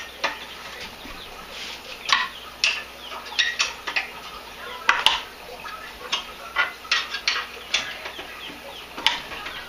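Small metal tools and loose hardware clinking and rattling as they are handled, a run of irregular sharp clicks.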